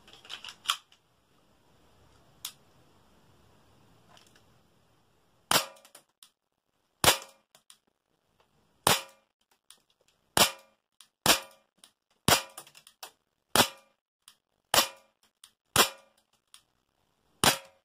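Tokyo Marui Ruger LCP non-blowback airsoft gas pistol firing about ten single shots, one every second or two, each a short sharp report. A few light clicks come before the first shot.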